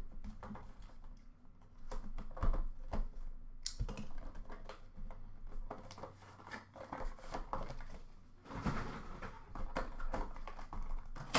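Hands handling and opening a cardboard trading-card box, making scattered taps, clicks and scrapes. A sharp click comes about four seconds in, and a stretch of rustling about nine seconds in.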